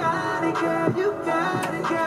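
A song with singing over a steady beat playing from a Panasonic RX-5031 stereo cassette radio's speakers, tuned to a radio station.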